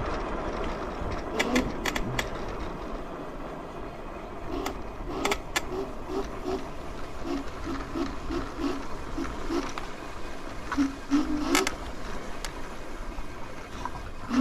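Yugen RX11 electric scooter riding along, with a steady low rumble and a rhythmic chirp about three times a second that starts about four seconds in, plus a few sharp clicks.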